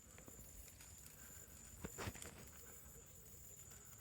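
Near silence with faint outdoor ambience: a thin, steady, high-pitched insect drone, and a couple of soft ticks about two seconds in.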